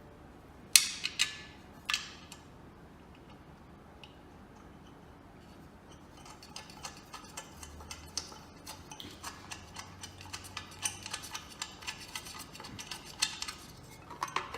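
Three sharp metal clanks about a second in, then a long run of light metallic ticks and clicks: the mounting flange and bolts being handled and fitted to the gumball machine's base.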